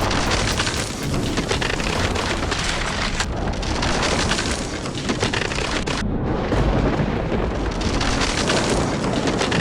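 Heavy rain with a deep, continuous rumble, as in a thunderstorm. The hiss thins out for a moment about six seconds in.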